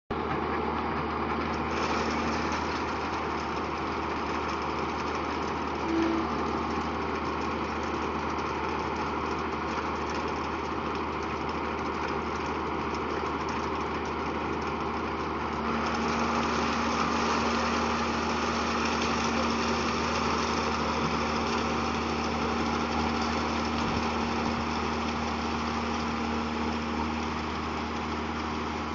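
John Deere 6930 tractor's six-cylinder diesel engine running steadily under load while pulling a Claas four-rotor rake through the field. The sound grows a little louder and brighter about halfway through.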